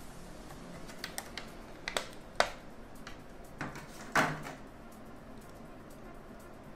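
Several sharp plastic clicks and knocks from a diecast model motorcycle being handled out of its clear plastic packaging. The loudest tap comes about two and a half seconds in, and a longer, rustling knock follows a little after four seconds.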